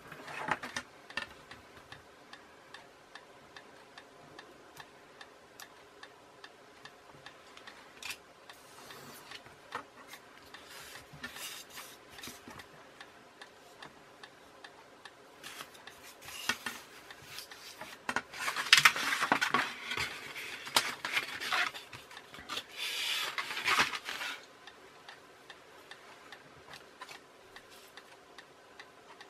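A clock ticking steadily, with bursts of scratchy scraping and rubbing from a craft knife and steel ruler working a foam plate. The scraping comes in short bouts a third of the way in and runs longer through the middle, loudest just before two-thirds of the way through.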